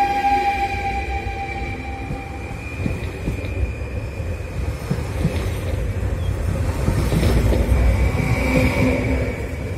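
Stadler FLIRT electric multiple-unit train running past along the platform. A steady electric motor whine fades out after about two and a half seconds, over a low rumble. A run of wheel clicks on the rails follows and is loudest near the end as the last carriage goes by.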